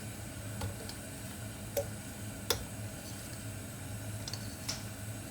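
Four light clicks of a utensil against a frying pan, spread out, over a steady low hum while chopped onion and garlic fry in oil.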